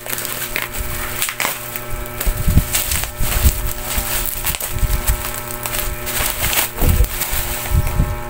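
Plastic bubble wrap crinkling and crackling as it is handled and pulled off a parcel, with irregular sharp crackles and occasional dull thumps of handling.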